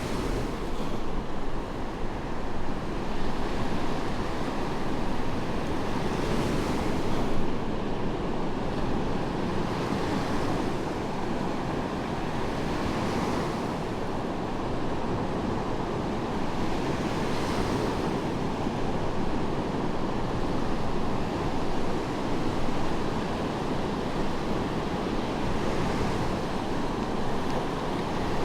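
Medium waves breaking and washing onto a sandy beach: a steady surf rush with a louder crash-and-hiss every few seconds.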